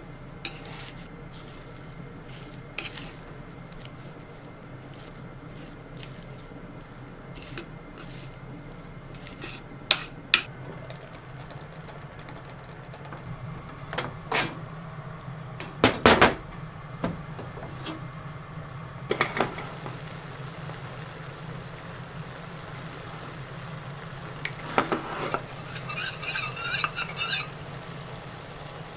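Kitchen utensil sounds: scattered light clicks and knocks of chopsticks and a spatula against a wooden salad bowl and a frying pan, with a few louder knocks in the middle. Near the end a metal spoon clinks rapidly against a metal cup while stirring a potato-starch slurry. A steady low hum runs underneath.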